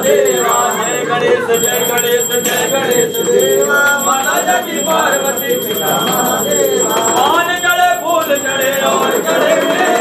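A temple bell ringing steadily while a group of worshippers' voices chant together.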